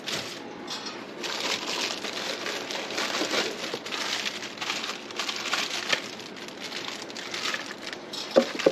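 Plastic packaging bags crinkling and rustling irregularly as boxed monitor-arm parts are handled and unwrapped.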